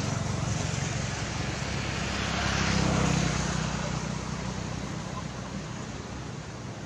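An engine droning past, swelling to its loudest about three seconds in and then fading away.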